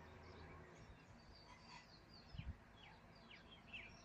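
Faint birds chirping: many short, high, falling chirps, with a soft low thump about two and a half seconds in.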